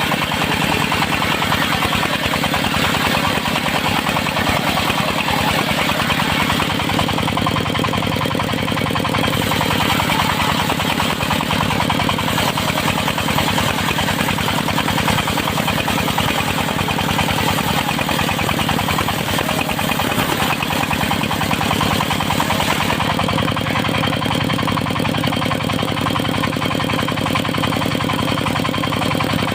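Engine of a circular sawmill running steadily at a constant speed, with a fast, even firing beat.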